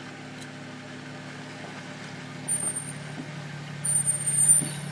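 Jeep Cherokee XJ's engine running steadily, getting louder about halfway through and again near the end as the driver works it up the muddy trail. Thin, high-pitched whining tones come in over it in the second half.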